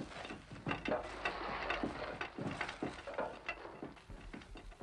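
Faint, irregular wooden clicks and creaks of rope-and-pulley hoisting gear at work.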